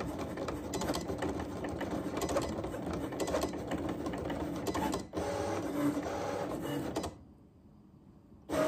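Cricut Explore 3 cutting machine running a test cut, its carriage and rollers whirring and rattling continuously. There is a short break about five seconds in, then a steadier whir until the machine stops about seven seconds in. A brief louder sound comes just before the end.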